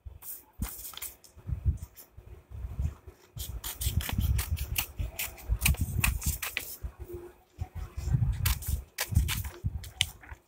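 Scissors snipping again and again through a sheet of white paper, cutting out a drawn circle, with low thuds as the sheet is handled.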